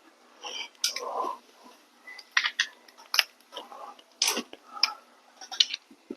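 Hand tools clicking and knocking on a motorcycle's rear brake caliper and its bolts as it is worked loose, in short, irregular taps spread over several seconds.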